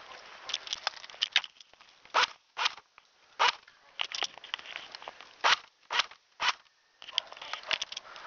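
Footsteps crunching through snow: a string of short, crisp crunches, several loud ones about half a second apart, with quicker small crackles near the end.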